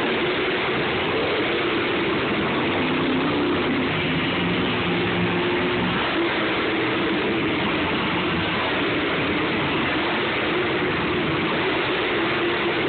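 Monster truck's supercharged V8 engine running loud in a steady din, its pitch rising and falling as it revs while the truck drives over junk cars.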